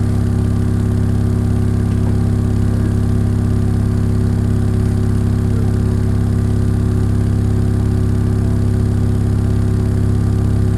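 Car-audio subwoofer with a homemade voice coil playing a loud, unchanging low bass tone with buzzy overtones. It is driven hard to heat the coil, which is smoking at over 300 degrees.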